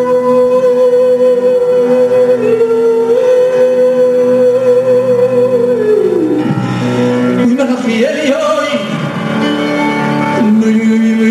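Male vocalist singing live into a handheld microphone, holding one long wavering note for about six seconds, then sliding down into a run of quick ornamented notes and settling on a new held note near the end, over steady instrumental backing.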